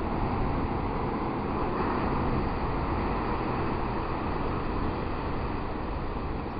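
Heavy surf from storm waves breaking along a sandy beach, a steady roar heard from a distance, with wind buffeting the microphone.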